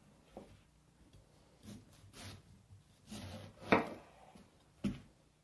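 Kitchen knife cutting straight down through a peeled pineapple beside the core and knocking on the cutting board: a few soft scraping cuts, then two sharp knocks near the end.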